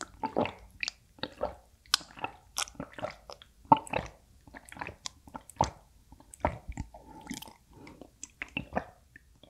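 Close-miked gulping and swallowing as water is drunk from a glass of ice water: an irregular run of short wet mouth and throat sounds, two or three a second.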